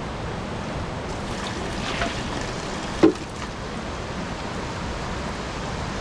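Steady rushing noise with no clear pitch, with a single sharp knock about three seconds in.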